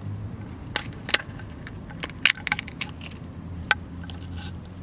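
A run of about eight irregular sharp cracks and snaps, bunched together in the middle, over a steady low hum.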